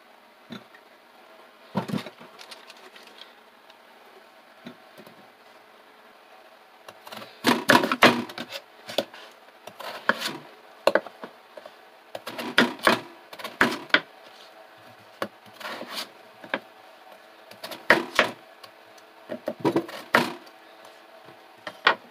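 Kitchen knife chopping a peeled potato on a wooden cutting board: sharp knocks of the blade striking the board, one about two seconds in, then many in quick irregular clusters from about seven seconds on.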